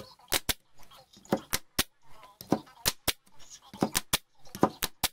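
Parkside PDT 40 D3 pneumatic nailer driving brads into a pine board, firing a rapid series of sharp shots, some in quick pairs, roughly two a second.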